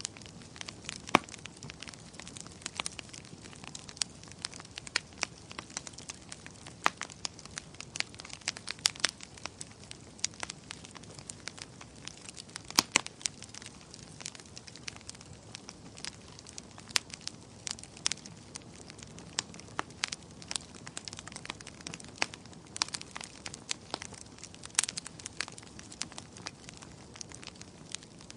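Bonfire burning, its wood crackling and popping in sharp, irregular snaps over a steady soft hiss.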